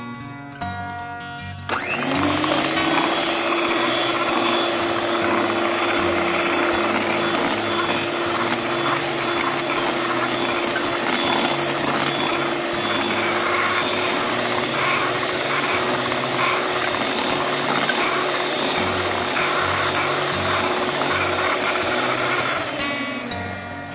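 Electric hand mixer beating cream and condensed milk in a bowl. The motor spins up with a rising whine about two seconds in, runs steadily at one pitch, and winds down near the end.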